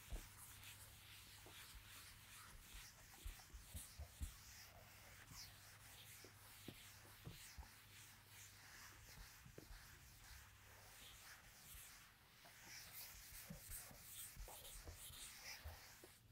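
Faint, repeated rubbing of a hand-held duster erasing a chalkboard, with a few soft taps.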